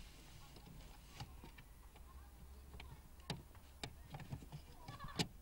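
A few faint, separate clicks and taps of a hand pressing on the plastic trim and clips around a car's tail-lamp housing, the plainest near the end.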